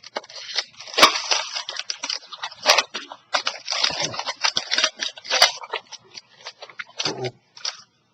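Packaging being torn and opened by hand: a stretch of crackling, crinkling and scraping broken by sharp clicks, with short pauses.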